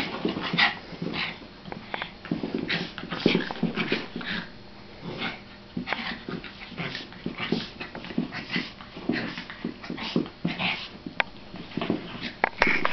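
Two small terriers play-fighting, giving short growls, snarls and high yips one after another with hardly a pause.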